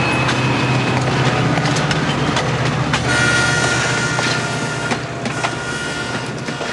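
Train rolling along the rails, with scattered clicks over the rail joints and a high squealing tone from the wheels that comes in about three seconds in, fading slowly near the end.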